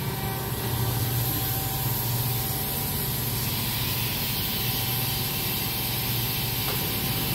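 Steady low hum with a hiss from a powered-up OKK HM6300S horizontal machining center standing idle, with no axis or pallet movement and no sudden sounds.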